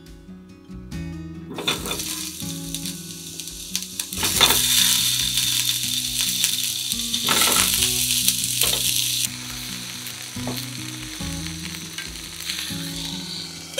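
Potato chunks dropped one after another into hot oil in a frying pan, each landing with a knock and a burst of sizzling. The sizzling is loudest from about four to nine seconds in, then settles to a softer hiss.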